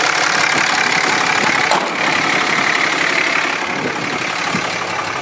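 A 6.7-litre Cummins turbo diesel idling steadily with its typical diesel clatter, with a single light click a little under two seconds in.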